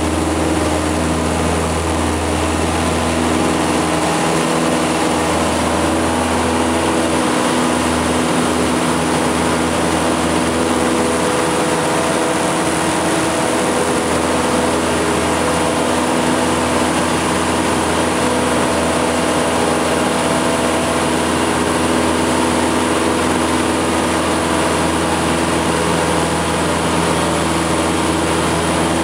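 Piper Super Cub's piston engine and propeller running steadily at takeoff power, heard from inside the cockpit during the takeoff run and climb. A low rumble under the engine note drops away about four seconds in.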